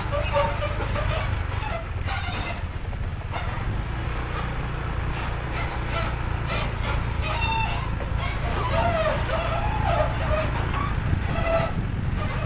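Steady low engine and road rumble from driving behind a heavy MAN TGS 6x6 truck hauling an excavator on a lowboy trailer over a rough road. Short high-pitched calls come and go over the rumble.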